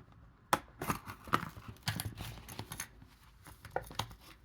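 Plastic blister packaging of a Hot Wheels premium die-cast car crackling and snapping in irregular clicks as it is worked open.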